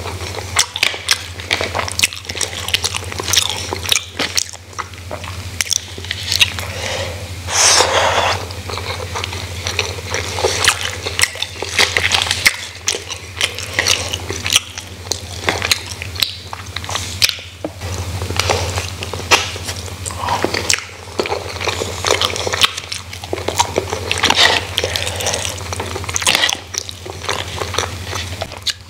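Close-miked eating sounds: wet chewing, lip smacks and many small irregular clicks as grilled chicken and rice are eaten by hand. A steady low hum runs underneath.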